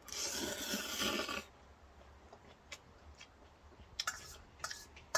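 A person slurping ramen, a hissing, gurgling slurp lasting about a second and a half, followed by a few light clicks near the end.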